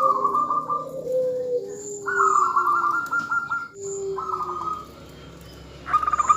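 Zebra dove (perkutut) call, said to be the female's call that draws males into song. It comes as three bursts of rapid trilled notes, with lower cooing tones sliding down between them.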